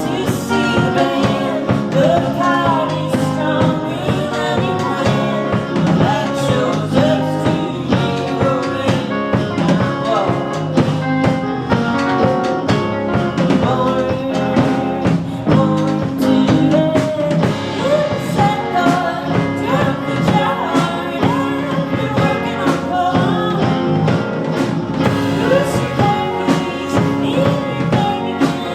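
Live rock band playing a song: a singer over drums and guitar.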